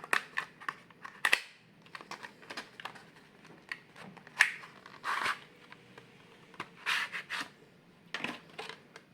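Small screws being undone from a laptop's metal drive caddy: scattered clicks of the screwdriver and tiny screws, with short scratchy scrapes of metal and plastic being handled.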